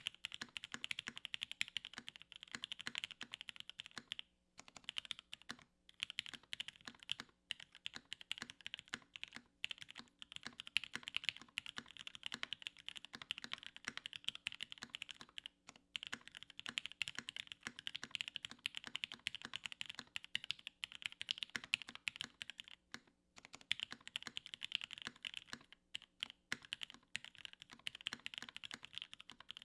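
Steady fast typing on a Tiger mechanical keyboard with Gateron Ink Red linear switches on an aluminum plate and CRP keycaps, a dense run of key clacks broken by a few brief pauses.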